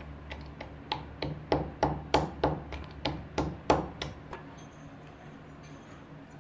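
Metal pestle pounding dry fruits in a steel mortar (khalbatta): about a dozen sharp metallic strikes, roughly three a second, that stop a little past halfway.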